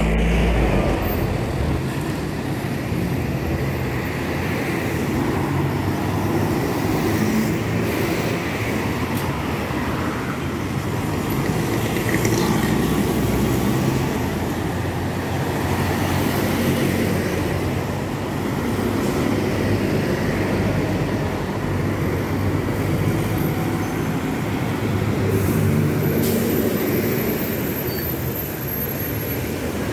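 City buses running and passing at close range along a busy street, their engines steady under the general traffic noise.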